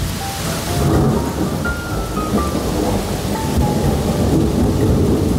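Thunder rumbling on without a break over steady rain, with a soft melody of single notes above it.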